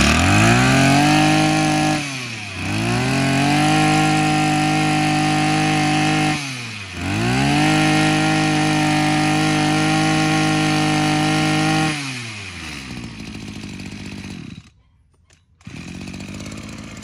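Maruyama 20cc two-stroke brush cutter engine running at high throttle. It drops back and revs up again twice, then falls to idle about twelve seconds in and stops about fifteen seconds in. The engine note is small but crisp.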